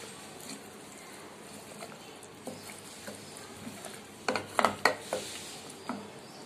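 Wooden spoon stirring potatoes and cluster beans in a pressure cooker, scraping and knocking against the pot. There are scattered clicks, and a quick run of loud clacks about four to five seconds in, over a faint steady hiss.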